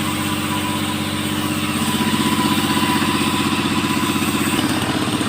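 Two-stroke engine of a 5800-type mini chainsaw running steadily at low revs, a little louder about two seconds in.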